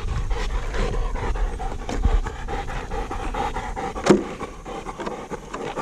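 Bullmastiff panting hard and fast after a long run chasing an RC truck, with one sharp click about four seconds in.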